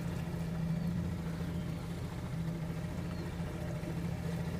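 Motorboat engine running steadily, a constant low hum heard from on board.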